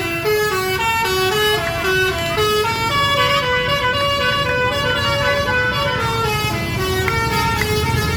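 Indonesian bus 'telolet' horn, a set of multi-tone horns playing a quick stepped tune, the notes changing several times a second and the tune repeating over a steady low rumble.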